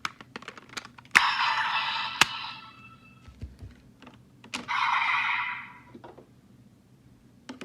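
Plastic clicks from a Bandai Kamen Rider Geats raise buckle toy being handled and pressed. Twice there is a short burst of electronic sound, about a second long, from the toy's small speaker.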